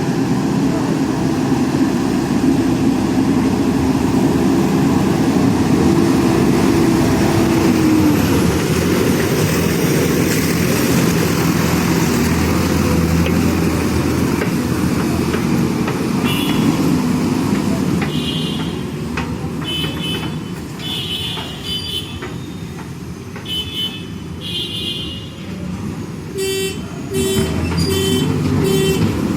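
A JCB backhoe loader's diesel engine running hard, dropping to a quieter run after about eighteen seconds. From then on short high beeps sound at intervals, turning into a quick even series of beeps near the end.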